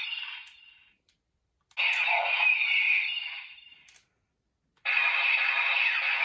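A short electronic toy sound effect played again and again: each play lasts about two seconds with a falling sweep and fades out, with about a second of silence between plays.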